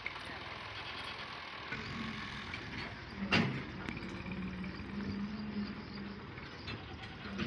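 An engine running with a steady low hum over outdoor noise, and one sharp knock about three seconds in.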